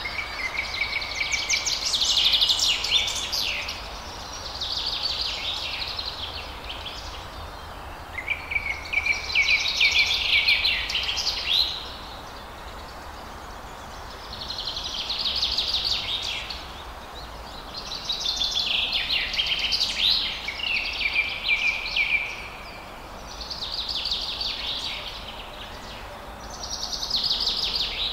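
Birds singing: about seven phrases of fast, high chirping trills, each lasting a couple of seconds, with short pauses between, over a faint steady outdoor hiss.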